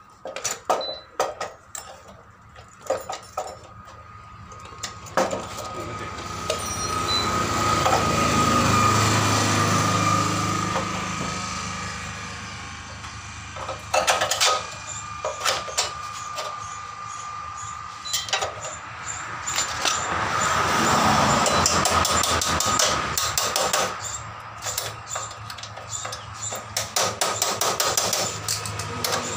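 Irregular metallic clicks and knocks from hand tools and wheel parts as a motorcycle's rear wheel is worked on at the axle. They come in clusters near the start, in the middle and near the end, with a rushing background noise that swells and fades twice.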